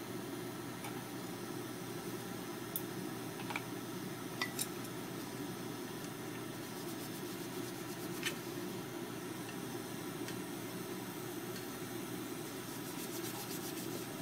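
A steady low fan-like whir, with a few light clicks of chopsticks and a spatula against a square metal tamagoyaki pan as the pan is wiped with a paper towel.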